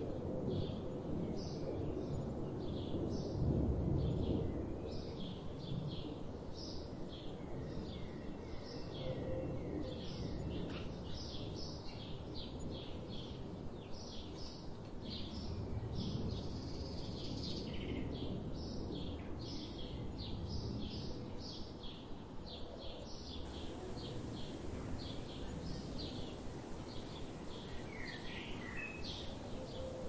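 Small songbirds chirping, a steady run of short high chirps about one to two a second, over a low steady background rumble.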